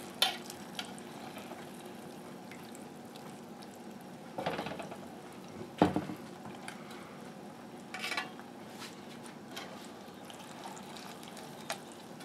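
Metal spatula and fork scraping and knocking against a cast iron roaster while lifting roasts out of their juices: a few separate clinks and scrapes, the loudest about six seconds in.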